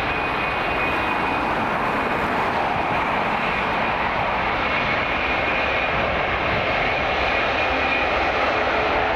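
Boeing 777-300ER's twin GE90-115B turbofan engines running at low thrust as the airliner taxis: a steady rushing hum with a faint high whine, growing slightly louder toward the end.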